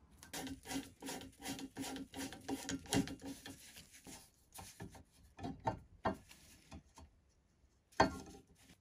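Close metal-on-metal scraping and clicking as a small steel pin is worked into a hole in a painted metal frame. There are about four seconds of rapid rubbing, then scattered clicks, and one sharp click near the end.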